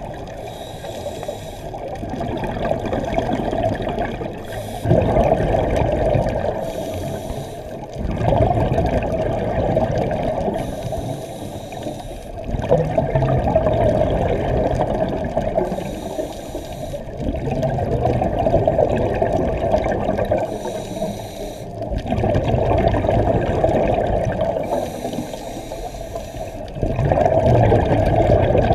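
Scuba diver breathing through a regulator underwater. Bubbly exhalations surge every four to five seconds, with quieter, hissing inhalations between them.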